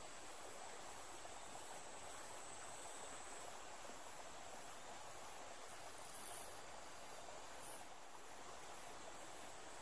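Insects chirring high and continuously in a pulsing pattern, with two brief louder bursts of it about six and nearly eight seconds in, over a steady low hiss.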